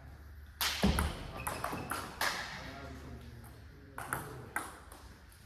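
Table tennis ball clicking off the rackets and the table during a rally, with echo from the large hall. There is a quick run of sharp clicks about half a second to two seconds in, then two more clicks near four seconds in.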